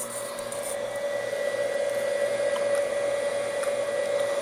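Steady whir of a small fan with a constant hum, slowly growing louder.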